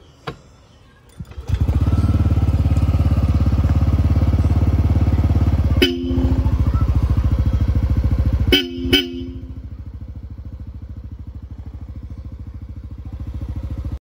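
Yamaha Aerox 155 scooter's single-cylinder engine starting about a second and a half in and idling, then settling to a quieter idle near the end. Over it a Bosch Europa Silver horn sounds two notes together in three short beeps: one near six seconds and a quick double near nine seconds.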